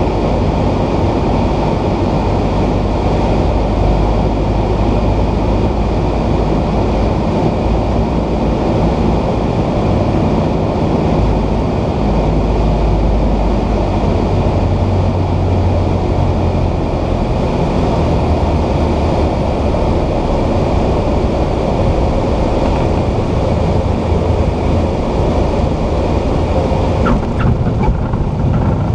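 Cessna 172 cabin noise: a steady drone of the piston engine and propeller mixed with rushing air, heard from inside the cockpit. A few short knocks come near the end.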